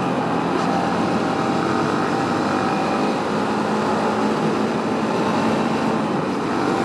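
Motorcycle engine running steadily at cruising speed while riding, under a constant rush of wind noise.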